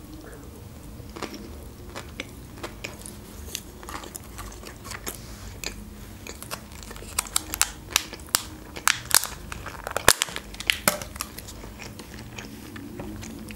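Close-up chewing of a crunchy crumb-coated sushi roll: wet mouth sounds and a run of sharp crunches, coming thicker in the second half, with one louder knock about ten seconds in.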